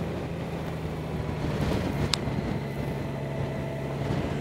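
Honda Gold Wing's flat-six engine running steadily while the motorcycle cruises, heard from the handlebars with road and wind noise. A single short click sounds about two seconds in.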